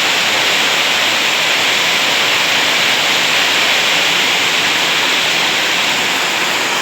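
Heavy rain falling: a steady, unbroken hiss.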